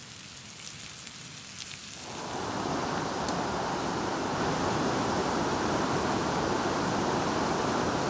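A campfire crackles faintly with a few small pops. About two seconds in, the louder, steady rush of a fast whitewater mountain creek takes over.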